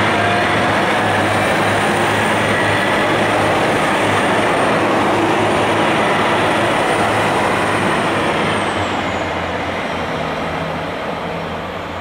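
KiHa 261 series diesel limited express train running past close by: the noise of its diesel engines and wheels on the rails, steady and loud, then fading as it draws away in the last few seconds.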